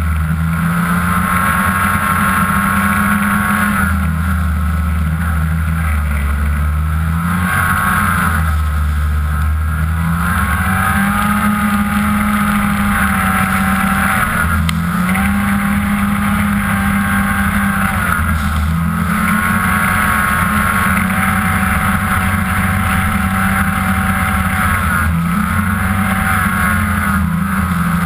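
Ski-Doo MX Z 500SS snowmobile's two-stroke twin engine running loudly at trail speed. Its pitch steps up and down a number of times as the throttle is eased and opened again.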